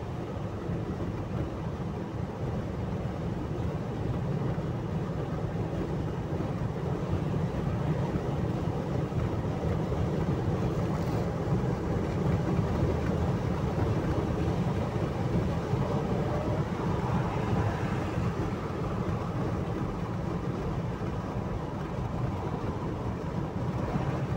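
Steady low road and engine rumble inside a car's cabin while driving along a highway.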